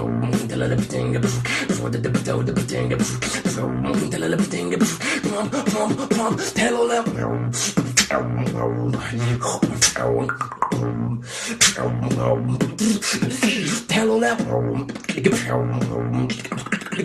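Beatboxing: a held low vocal hum that breaks off every few seconds, with sharp mouth clicks and snare hits and wavering sung tones on top.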